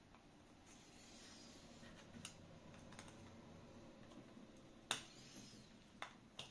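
Small pliers clicking against a small wooden block as they are worked at it: five or so sharp, isolated clicks over a low room hum, the loudest about five seconds in.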